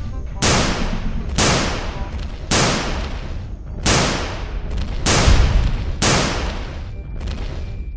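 Six gunshot sound effects, about one a second, each a sharp crack that fades off in a long hiss, over a steady low rumble.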